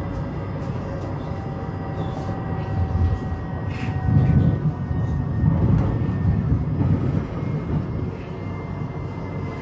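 Tram running along the line, heard from inside the car: a steady rumble of wheels on rails with faint steady whine tones above it. The rumble grows louder for a few seconds in the middle, then eases.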